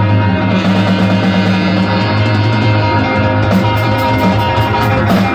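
Live band of electric guitar, saxophone, keyboard and drums holding a loud sustained chord. About halfway through, a run of quick cymbal hits comes in at about five a second.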